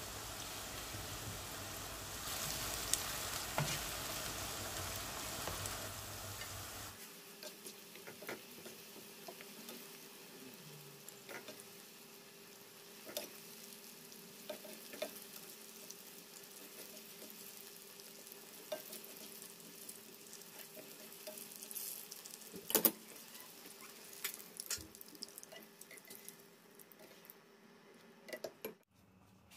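Diced aubergine frying in hot oil in a nonstick pan: a dense, steady sizzle that drops abruptly about seven seconds in to a quieter crackle with scattered small pops. A sharp knock, a utensil against the pan, stands out about three quarters of the way through.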